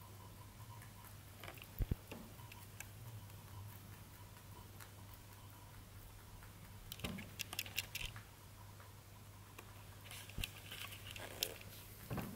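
Faint rustling, scratching and small clicks of a baby rabbit moving over bedding and hay, over a low steady hum. The rustling comes in a burst about seven seconds in and again near the end.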